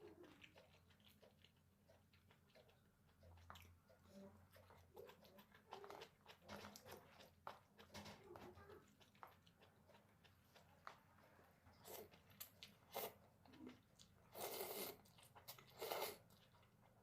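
Close-miked mukbang eating sounds: quiet chewing and biting of jjajangmyeon with octopus, with a few louder wet smacks near the end.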